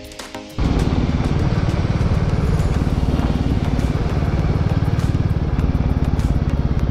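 Background music cuts off about half a second in, giving way to a Royal Enfield motorcycle's engine running steadily at cruising speed, heard from the rider's seat with wind rush.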